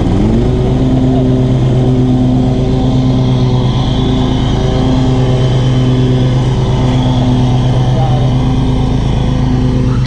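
Zero-turn mower's engine revving up during the first half-second, then running steadily at high speed.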